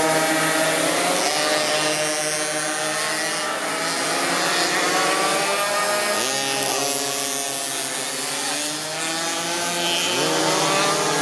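Several minimoto pocket bikes' small two-stroke engines racing together, overlapping. Their pitch climbs as the bikes accelerate out of the corners and drops back as they ease off, with fresh rising revs a little after halfway and again near the end.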